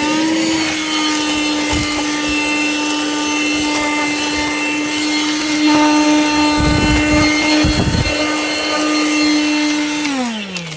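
Reserwa 12 V, 106 W handheld car vacuum running with a steady, loud motor whine. A few low thuds come about two-thirds of the way in. Near the end it is switched off and the motor winds down, its pitch falling.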